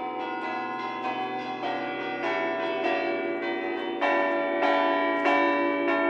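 Church bells of Santa Maria Maggiore's bell tower playing a bell concert, about two strikes a second, each note ringing on into the next. The ringing grows louder about four seconds in.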